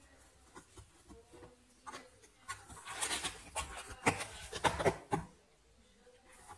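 Scratching and scraping on a cardboard box as a Siamese cat paws and moves about inside it, a busy cluster of sharp scratches for a couple of seconds in the middle.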